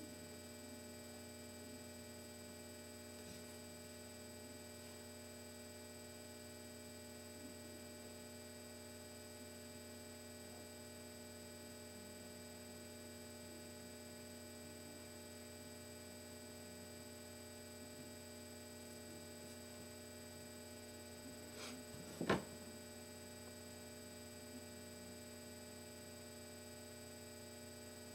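Steady electrical mains hum with a stack of overtones, low in level. About three-quarters of the way through comes a single sharp knock, with a smaller tap just before it.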